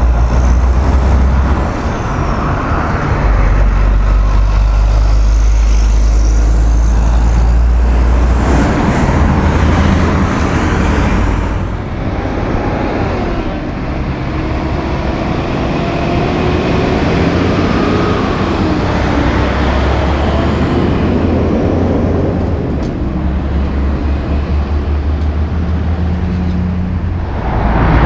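Road traffic: cars and heavy diesel trucks, a loaded log truck among them, driving past with engine and tyre noise. A truck engine's pitch rises and falls through the middle.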